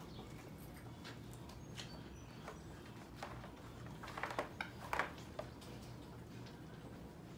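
Sheepadoodle puppies scuffling on a rug as they crowd around their mother, with a short burst of puppy squeaks and yips about four to five seconds in.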